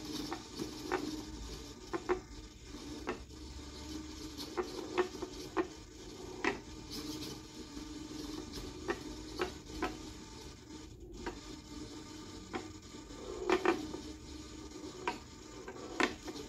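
Ball of a BRIO wooden labyrinth game rolling across the tilting maze board, with irregular sharp clicks as it knocks against the wooden walls, over a steady low hum.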